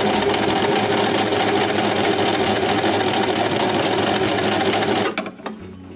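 Singer SM024 electric sewing machine running steadily while sewing a zigzag stitch, then stopping suddenly about five seconds in.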